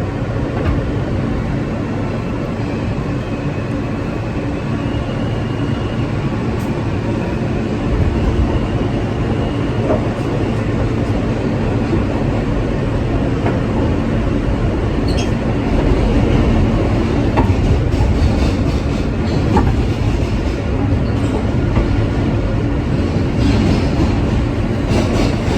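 New York City subway F train running, heard from inside the car: a steady low rumble of wheels and motors that grows louder about eight seconds in and again later. A faint high whine stops after a few seconds, and scattered clicks and rattles come in the second half.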